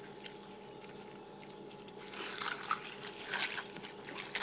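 Milk being poured into a bowl of dry waffle-shaped cereal squares, splashing onto them. It gets louder from about two seconds in, with irregular clicks and crackles.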